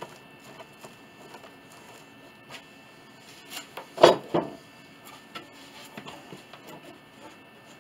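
A glue brush working over a wooden board, with faint scrapes and light taps, and a pair of sharp wooden knocks about four seconds in as a long wooden piece is picked up from the workbench.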